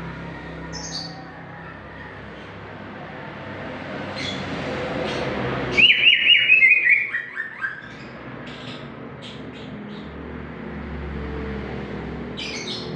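Green leafbird (cucak ijo) singing vigorously: scattered short high chirps, with a loud rapid run of notes falling in pitch about six seconds in.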